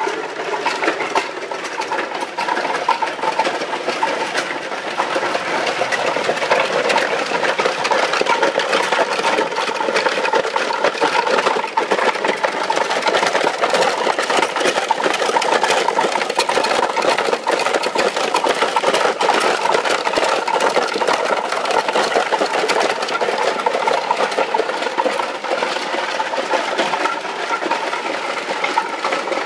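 Pedal-powered ice shaver running steadily, its bicycle chain driving the cutting drum as it shaves ice, with a continuous rapid rattling whir.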